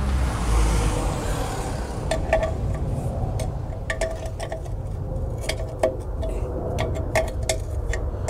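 Brake spring pliers tapping and clinking against the steel backing plate of a drum brake: a string of short, sharp metallic clicks, irregularly spaced. A low rumble underneath is strongest in the first second.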